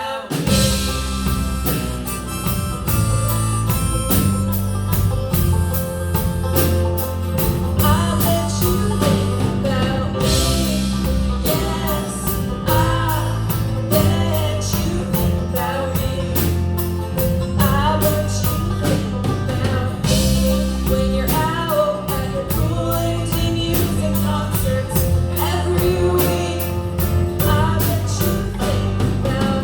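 Band playing an instrumental passage of a pop-rock song, with a steady drum beat and a repeating bass line under a wavering melody.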